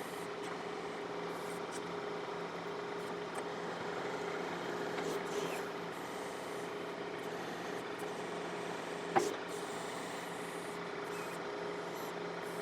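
John Deere 4052R compact tractor's diesel engine running steadily while working the 485A backhoe, with scattered light clicks and one sharp knock about nine seconds in.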